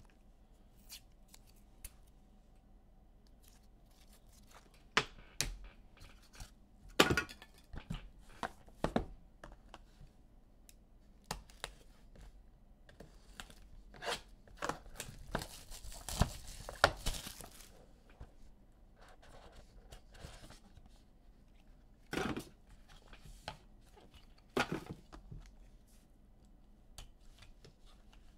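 Sports-card pack wrapper being torn open and crinkled, with scattered clicks and knocks as cards and packaging are handled on a table. The longest stretch of tearing and rustling comes a little past the middle.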